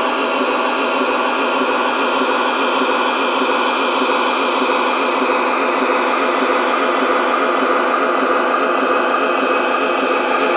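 MTH O-scale model of GE's Evolution Hybrid locomotive playing a diesel engine's running sound steadily through its small built-in speaker, really loud and with a hiss of static.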